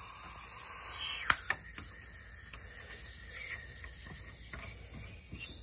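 Refrigerant hissing out of a car A/C service port whose Schrader valve core is bad and not sealing after the hose coupler was removed. The hiss is strongest in the first second or so, then goes on fainter, with a couple of light clicks and a short louder spurt near the end.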